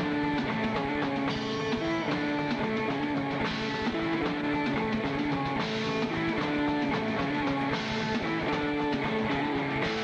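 Rock band playing live: electric bass, guitar and drum kit, with a cymbal crash about every two seconds.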